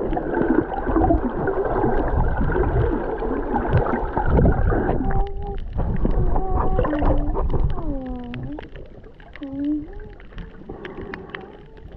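Water churning and bubbling as heard underwater. About halfway in it quietens, and a series of short tones follows, each about a second long, sliding down and back up in pitch, among small clicks.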